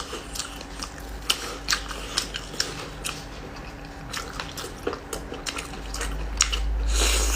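Close-up eating sounds: a person biting and chewing tender braised lamb shank meat that comes off the bone, with many short wet clicks and smacks. A louder stretch of noise comes in near the end.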